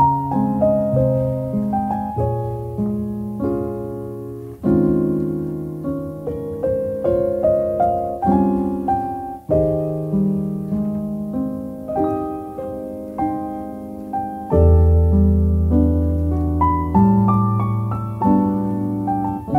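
Background music: solo piano playing a gentle run of chords and melody, with a deep bass chord a little past the middle.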